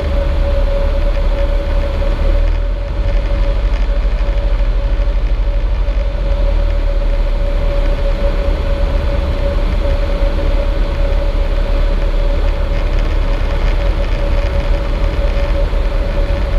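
Cessna 152's four-cylinder Lycoming engine and propeller running steadily while the plane descends on final approach, heard inside the cockpit as a loud, even drone with a deep rumble and one steady tone over it.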